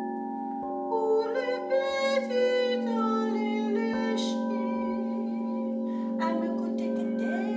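Alchemical crystal singing bowls ringing in long, overlapping tones, with a fresh bowl tone struck in a few times. A woman's wordless light-language toning slides up and down over them from about one to three and a half seconds in.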